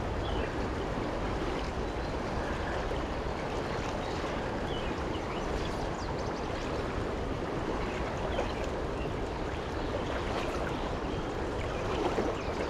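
Fast, high-running river rushing and splashing steadily.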